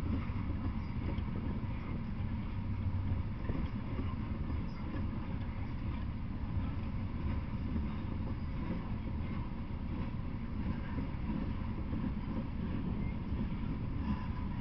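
Freight train of open-top hopper cars rolling past at steady speed: a continuous low rumble of wheels on rail.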